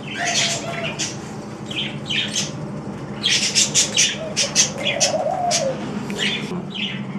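Ringneck doves cooing in low, gliding coos, the longest about five seconds in, among many short high chirps from other small birds that come thick and fast in the middle. A steady low hum runs underneath.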